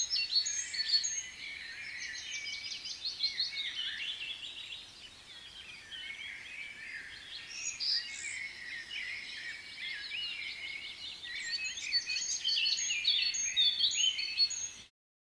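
Birds chirping and singing, a busy run of quick high chirps and trills that cuts off suddenly near the end.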